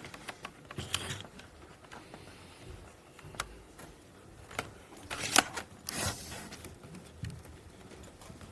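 Handling noise at a lectern as a laptop and its video cable are connected: scattered clicks and knocks with some rustling, the sharpest knock about five seconds in.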